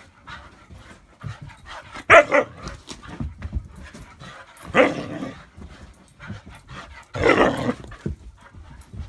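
Siberian husky barking and yowling in three loud bursts, about 2, 5 and 7 seconds in, with softer bumps between them, in protest at an air compressor.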